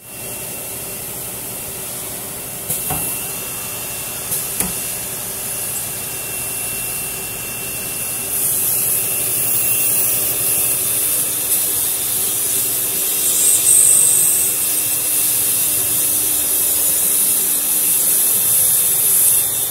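A circular saw blade on a CNC router's spindle cutting through aluminium sheet: a steady high-pitched hiss of cutting as chips spray off the blade, growing louder about eight seconds in. There are two sharp ticks a few seconds in.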